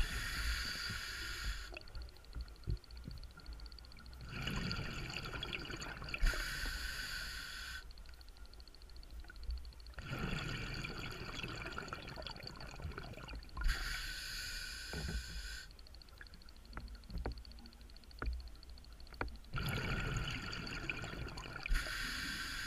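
Scuba diver breathing through a regulator underwater: hissing breaths and bubbling exhalations come in bursts of one to two seconds, every few seconds, with a few faint knocks in between.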